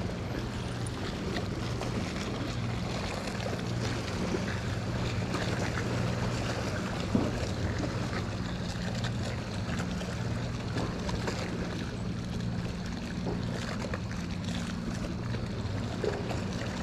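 Wind on the microphone and water lapping, under a steady low hum.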